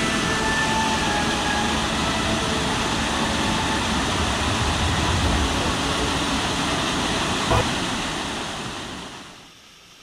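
Steady rush of water falling over a waterfall, with a single short knock about seven and a half seconds in, then fading out over the last couple of seconds.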